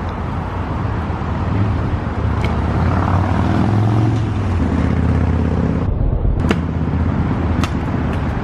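Road traffic running close by, a vehicle engine swelling and fading in the middle, with a few sharp clacks of a stunt scooter's wheels and deck hitting concrete.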